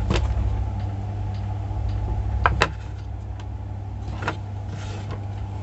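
A few sharp clicks and knocks from handling the opened plastic base of an electric kettle, the loudest about two and a half seconds in, over a steady low hum.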